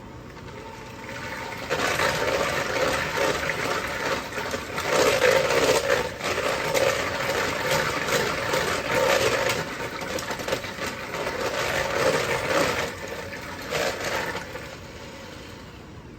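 A thin, liquid custard batter of eggs, milk, cream cheese and sugar being stirred briskly in a large bowl, sloshing and splashing in uneven strokes. It starts about two seconds in and stops a little before the end.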